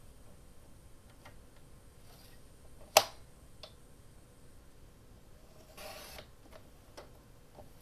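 Scissors and paper being handled: scattered light clicks, one sharp snap about three seconds in, and a short paper rustle about six seconds in.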